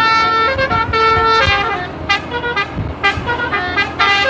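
Indonesian Basuri-style 18-note telolet bus horn playing a melody: long held notes in the first second and a half, then a run of quicker, shorter notes.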